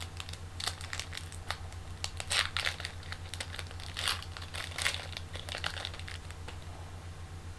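Crinkling of a trading-card pack wrapper being handled, a rapid run of crackles that dies down about six and a half seconds in.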